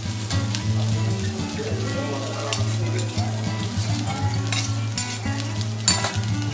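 Fried rice sizzling on a hot steel teppanyaki griddle, with repeated clicks and scrapes of metal spatulas against the plate. The sharpest clack comes near the end.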